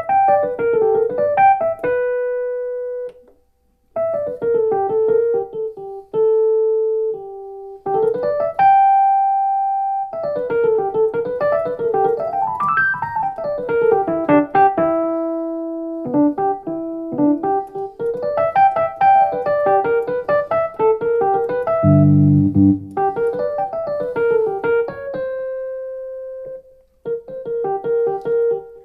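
A digital stage piano's tine electric piano patch, modelled on a Rhodes Mark II, played as a bluesy improvisation: melodic runs and held notes with short pauses and a low chord about two-thirds of the way through. The patch is EQ'd with the treble and mids cut and the bass boosted.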